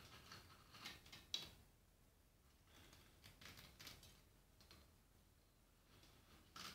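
A cockatiel pecking and crunching rusk in a stainless steel bowl: faint, irregular clicks and crunches, the sharpest a little over a second in, a small cluster around three to four seconds, and another near the end.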